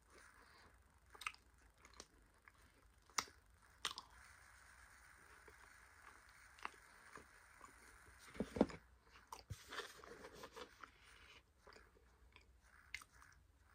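Close-up chewing of a mouthful of scented cornstarch: soft crunching and crackling, with scattered sharper crunches, the loudest a little past halfway.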